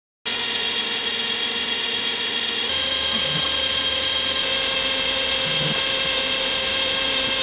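Clausing 5914 metal lathe running with a steady whine while a turning tool cuts a 1018 steel workpiece, removing excess material. The sound starts abruptly just after the beginning.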